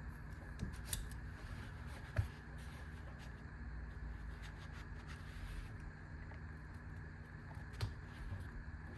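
Hand tools being handled and fitted into a fabric tool pouch: a few short clicks and knocks, the loudest about two seconds in, over a steady background hum.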